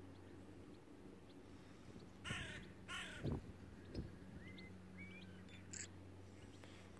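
A crow cawing twice in quick succession, two harsh calls a little over two seconds in.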